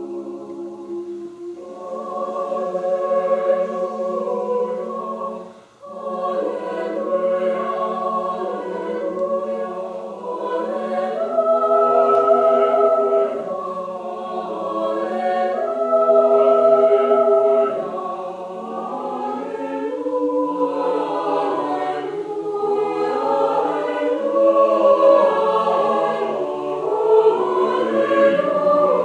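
A choir singing a sacred piece, with full chords held and moving through phrases and a short breath break about six seconds in.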